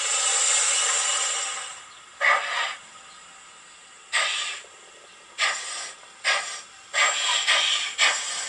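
YouChoos sound decoder in a model steam locomotive playing steam sounds through its small speaker: a steady hiss of escaping steam, then slow exhaust chuffs that come closer together as the engine gets under way.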